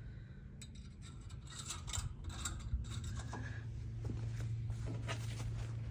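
Light rubbing, rustling and small clicks of things being handled, over a low steady hum.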